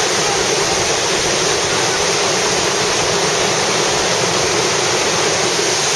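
Loud, steady rush of a whitewater rapid on a big river.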